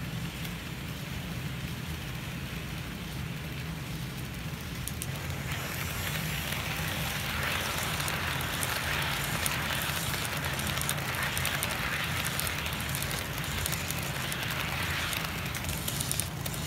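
HO-scale model freight train rolling along the track, its wheels giving a crackly, clicking rattle over the rails. The rattle grows louder about five seconds in, as the cars pass close by, over a steady low hum.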